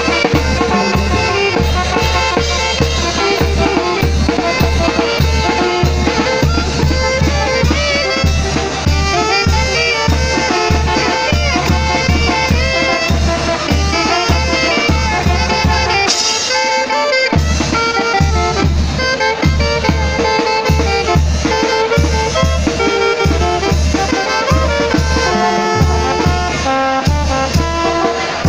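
Live band of saxophones and drum kit playing a lively tune over a steady, quick bass-drum beat. About halfway through the beat drops out for a moment, then comes back in.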